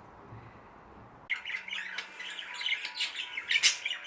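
A flock of pet budgerigars chattering and squawking, a dense run of quick chirps and harsh calls that starts abruptly about a second in.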